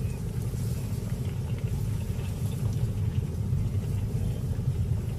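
A steady low rumble with no clear beat or pitch.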